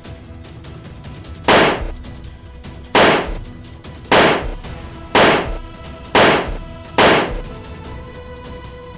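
Six loud, sharp bangs, roughly one a second, each dying away quickly, over background music.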